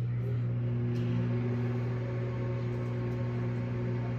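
Over-the-range microwave oven running with a steady hum and no sparking or crackling: the new mica waveguide cover has stopped the arcing.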